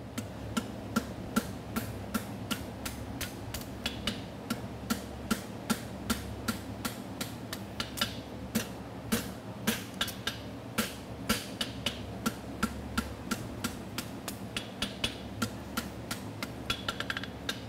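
Hand hammer striking a red-hot steel horseshoe bar on an anvil in a steady rhythm of about three blows a second, forging in the bevel. A steady low fan hum runs underneath.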